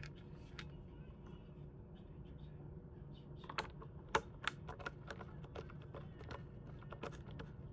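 Scattered light clicks and taps of a screwdriver and small plastic parts being handled while a CPAP machine is taken apart, mostly in the second half, the sharpest about four seconds in.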